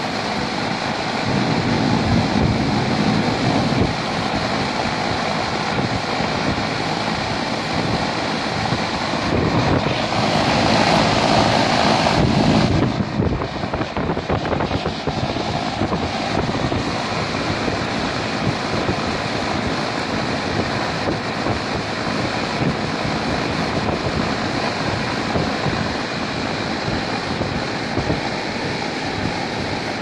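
Fan of a Goodman outdoor air-conditioning condenser with a clogged coil, running steadily with its discharge air rushing over the microphone. The rush swells briefly about two seconds in and again for a couple of seconds about ten seconds in.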